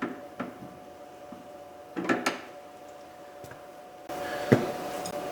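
Scattered clicks and light knocks of hand tools and metal door hardware being handled, with a small cluster of knocks about two seconds in and a sharper click near the end.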